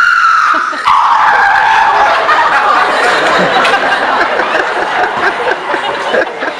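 A man imitating a car being driven, using only his voice: a high, slowly falling tone that breaks off sharply about a second in and carries on as a rougher, hissing sound. Audience laughter runs underneath.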